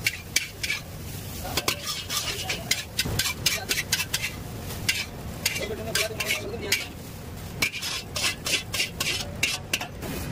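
Metal ladle and spatula clanking and scraping against an iron wok as noodles are stir-fried, with rapid, irregular strikes several times a second over the sizzle of the frying food.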